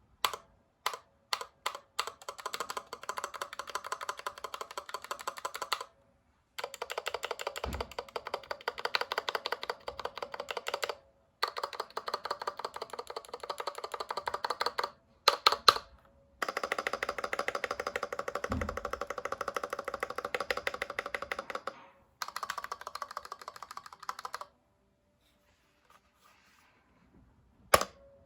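Fast typing on a Varmilo x Ducky Miya Pro mechanical keyboard: a few single keystrokes, then long runs of rapid clacking broken by short pauses, with a couple of deeper thuds from heavier key presses.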